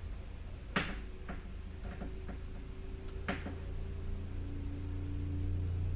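About five light clicks and taps, the sharpest about three seconds in, over a low steady hum.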